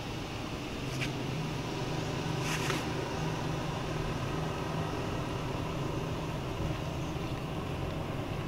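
A steady low engine hum runs throughout, with a faint click about a second in and a short rustle about two and a half seconds in.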